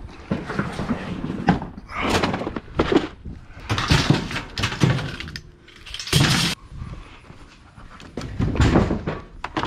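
A series of thunks and clatters as junk is handled and dropped onto a pickup bed piled with bicycles and scrap metal.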